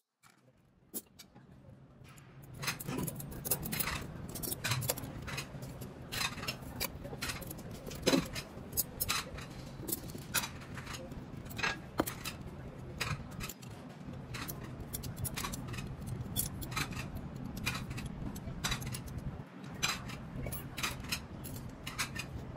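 Stainless steel forks and knives clinking against one another as they are pushed into neat overlapping rows on a tablecloth: many light, irregular metallic clicks, starting about two seconds in.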